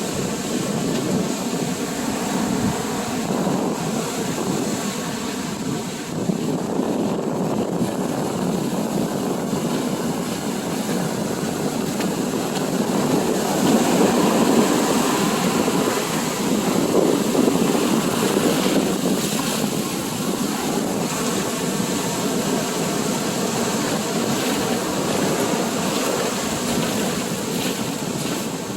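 Ocean surf rushing onto the beach with wind on the microphone, swelling louder around the middle.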